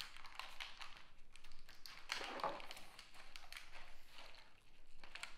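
A wrapper crinkling: a dense, irregular run of small crackles, busiest about two seconds in.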